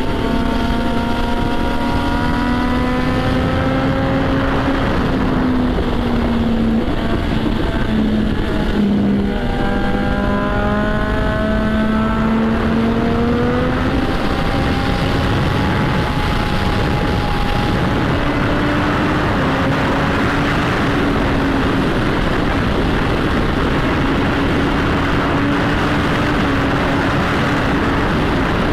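Motorcycle engine and exhaust running at riding speed under heavy wind noise on the microphone. The engine note sags, then climbs about halfway through and holds steady.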